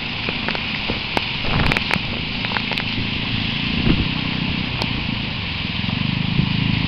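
Typhoon weather: a steady hiss of heavy rain with a low rumble beneath it and scattered clicks of drops.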